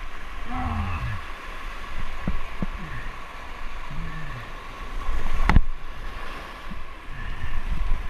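A paddler's short effort grunts, rising and falling in pitch, a few seconds apart as he paddles an inflatable kayak hard through whitewater rapids, over the steady rush of fast water and wind on the microphone. One sharp knock comes about five and a half seconds in.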